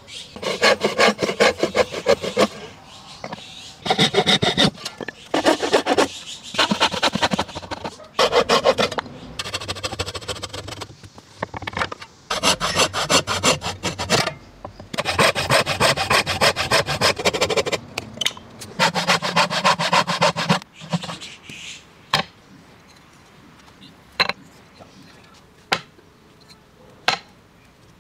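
Traditional wooden bow saw cutting through a wooden board by hand, quick back-and-forth strokes in several long bursts with short pauses between. The sawing stops about 21 seconds in, followed by a few sharp, isolated wooden knocks.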